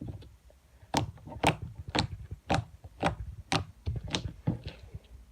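Homemade slime being squeezed and worked by hand, popping and clicking as air bubbles burst: a run of sharp pops about two a second, starting about a second in.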